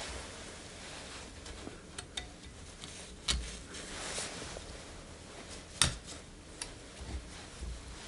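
Scattered light metal clicks and handling noise as the spring-steel retaining clip is worked onto the pad pins of a Porsche 944 front brake caliper, with one sharper click about two-thirds of the way through.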